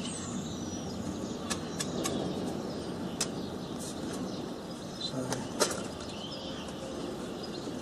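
A few sharp metallic clicks and light clinks as small metal bracket pieces are handled and fitted together, over a steady background rumble with occasional faint bird chirps.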